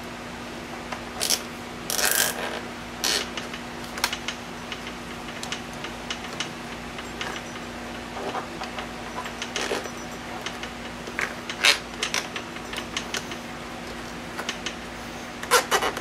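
Scattered clicks and plastic rattles as a plastic voltage-meter box is handled and fastened to a seat frame with zip ties. The sounds come at irregular intervals, with the loudest knocks about two seconds in, near the middle and near the end, over a steady low hum.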